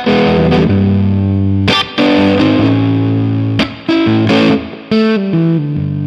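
Music: a loud, distorted electric guitar riff of held notes, broken by short pauses between phrases.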